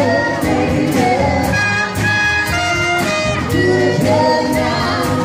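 Live small band playing: horns (trumpet, clarinet and saxophone) hold and change pitched notes over drums with a steady cymbal beat.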